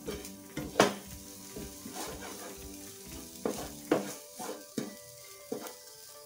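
Spatula stirring and scraping a sautéing onion-and-spice mixture in a nonstick pan, with a light sizzle and repeated sharp knocks of the spatula against the pan.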